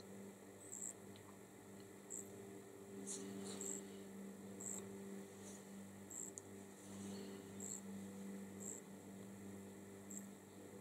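Faint steady electrical hum with small high-pitched ticks about once a second, under faint soft rustling of fabric being handled and pinned.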